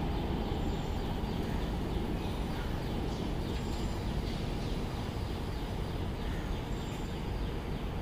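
Steady outdoor background rumble, with faint short bird chirps now and then.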